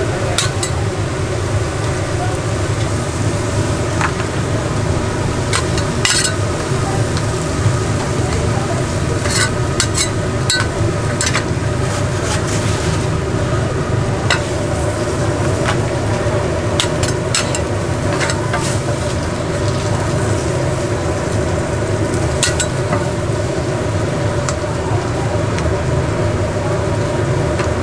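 Gopchang and vegetables sizzling as they are stir-fried in a hot pan, with irregular sharp clicks and scrapes of utensils against the pan over a steady low hum.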